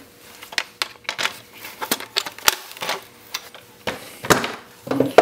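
Plastic housing of a Cisco desk phone being handled and worked apart with pliers at a workbench: a run of irregular sharp clicks and snaps of plastic and tools, loudest about four to five seconds in.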